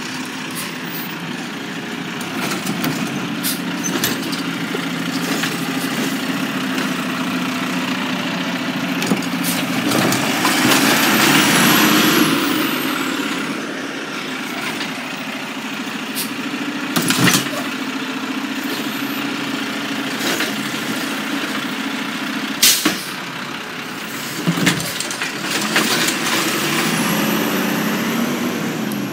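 Garbage truck's diesel engine running steadily, with a long hiss that swells and fades about ten to twelve seconds in and a few sharp bangs in the second half.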